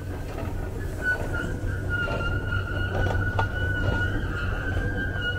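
Subway escalator running while riding down it: a steady high-pitched whine with a slightly wavering pitch over a low hum.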